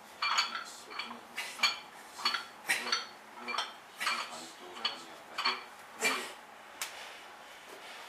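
Loaded barbell clinking and clanking with each rep of a bench row, a quick run of about fifteen sharp metallic knocks with a short ring, stopping about seven seconds in.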